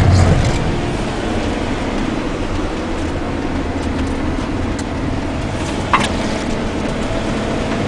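Steady engine and tyre noise of a moving road vehicle, with one sharp click about six seconds in.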